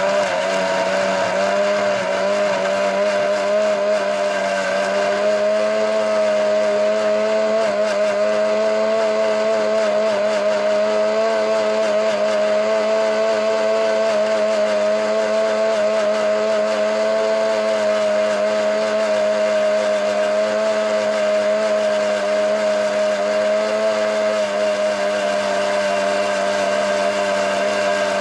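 Electric kitchen mixer-grinder (juicer) blending aloe vera gel into juice, running with a steady high motor whine. The pitch rises slightly over the first few seconds and then holds level.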